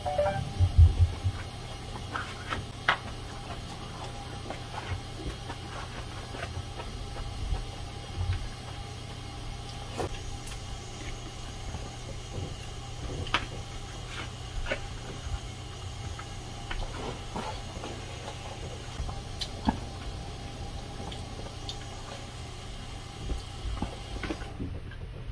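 Close-miked eating sounds: chewing and mouth noises on a mouthful of rice and vegetable stew, loudest in the first second or so, with scattered sharp clicks of a spoon and plastic fork against plastic food containers, over a steady low hum.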